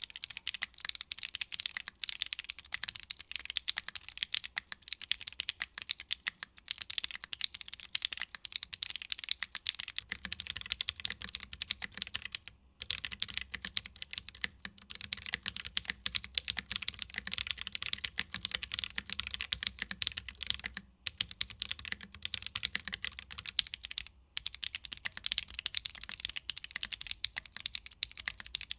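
Continuous fast typing on a Tofu65 2.0 mechanical keyboard with Gateron Blizzard tactile switches, a polycarbonate plate and ABS keycaps: a dense stream of sharp keystroke clicks, broken by a few short pauses.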